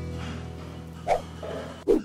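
Background music fading out, broken by a short sharp sound about a second in and another just before the end.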